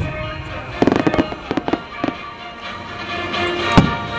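Aerial fireworks shells bursting: a bang at the start, a quick cluster of crackling pops about a second in, a few more pops, and a loud bang near the end. Music plays steadily underneath.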